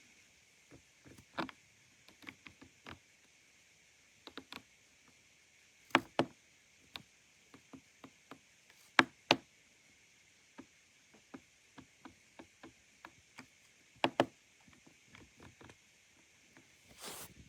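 Keys on an Ajazz AK820 Pro gasket-mounted mechanical keyboard being pressed, giving irregular clacks with a few sharper, louder strokes among them.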